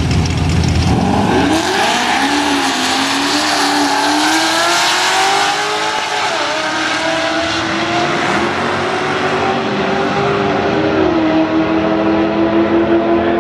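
Chevy SS 6.2-litre V8 and Jeep Grand Cherokee SRT8 V8 launching side by side at wide-open throttle in a drag race. Their engines rev up from about a second in, with the pitch dropping at each upshift, and settle into a steadier drone near the end as the cars run down the track.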